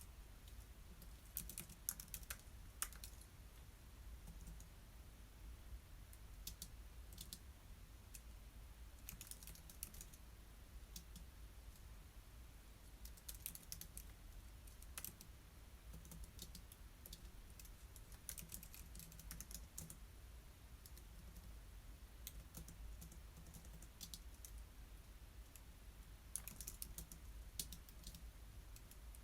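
Typing on a computer keyboard: short runs of quiet keystrokes separated by pauses of a few seconds, over a faint steady low hum.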